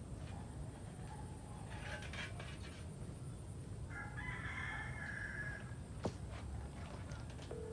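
A rooster crowing once, a single long call of about two seconds near the middle, followed shortly after by one sharp knock, over a steady low rumble.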